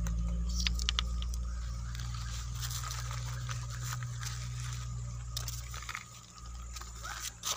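Riverbed stones and gravel knocking and crunching as they are handled and moved over, with a sharp knock at the start and a few more clicks, over a steady low hum.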